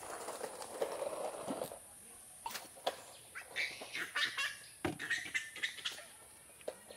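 Domestic fowl and birds calling on and off, with a few sharp clicks and a steady high-pitched hiss throughout.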